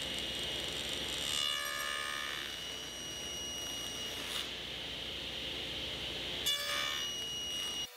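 Table saw running, its blade plowing out the waste between bandsaw cuts in a solid cherry board for dovetail pins: a steady high whine over a hiss that shifts a few times as the board moves over the blade, then stops abruptly near the end.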